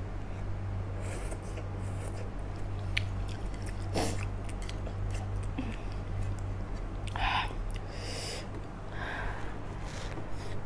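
A person chewing and slurping instant noodles, with wet mouth sounds and a few short clicks, over a low steady hum.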